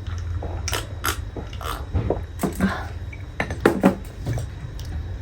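Cutlery and dishes clinking: about six sharp clinks and knocks of utensils against plates and bowls, over a steady low hum.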